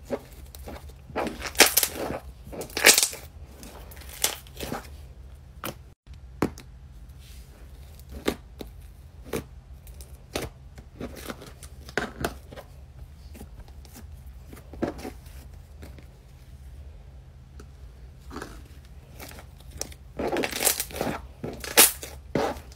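Slime being squeezed, stretched and poked by hand, making irregular sharp crackles and pops over a steady low hum. The crackling is densest near the start and again near the end.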